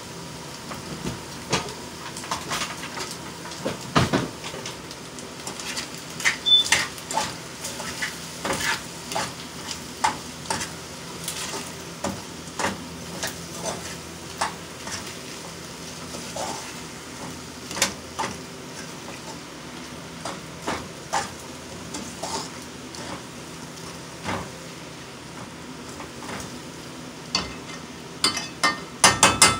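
A metal fork clinking and scraping against a metal pan as pasta is stirred, in irregular knocks about once or twice a second that come in a quick flurry near the end, over a low steady sizzle from the pan on the gas flame.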